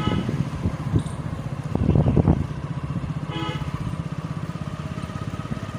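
Motorcycle engine running while riding, a little louder about two seconds in, with a short horn beep about three and a half seconds in.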